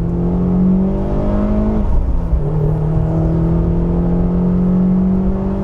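Mercedes-Benz 190E 2.5-16 Evo II's four-cylinder engine pulling under acceleration while driving. Its pitch rises, falls once with an upshift about two seconds in, then climbs steadily again.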